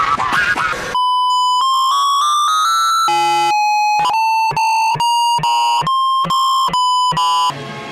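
About a second of chopped, stuttering audio, then electronic beep tones played as a melody: a held beep, a quick run of rising steps, and a string of short separate beeps near one pitch. The beeps cut off abruptly shortly before the end.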